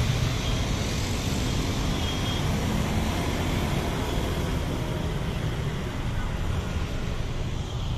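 Steady street traffic noise: a continuous wash of passing vehicles with a low engine hum underneath.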